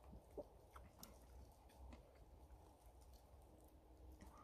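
Near silence: faint chewing and a few small clicks as a man eats and sips from an enamel camping mug.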